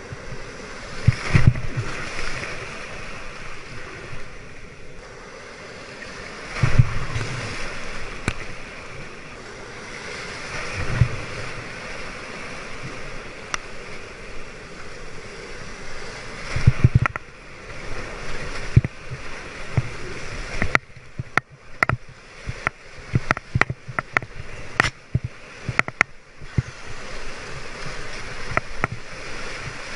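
Breaking surf and whitewater foam rushing and splashing around a kayak, with several sudden heavy thumps of water hitting the camera. In the second half the sound crackles and briefly cuts in and out as spray washes over the microphone.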